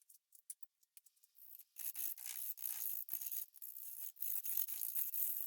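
Bowl gouge cutting a wet, out-of-round maple blank spinning on a wood lathe: a few scattered ticks, then from about two seconds in, broken hissing scrapes as the tool catches the high spots of the unround, bouncing blank.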